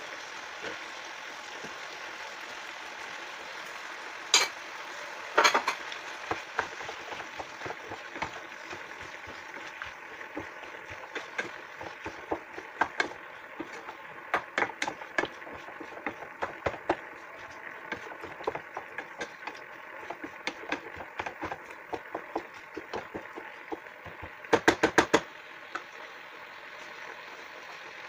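Wooden spoon stirring diced potatoes and chicken in a frying pan, scraping and clicking against the pan over a steady cooking hiss. A quick run of sharp knocks comes near the end.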